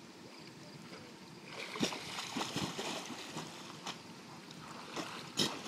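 An American Pit Bull Terrier paddling at the surface of a swimming pool, carrying a rubber toy in her mouth: light water splashing and lapping that starts about one and a half seconds in, with irregular short splashes and a sharper sound near the end.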